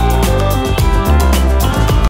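Background music with a steady beat and deep held bass notes.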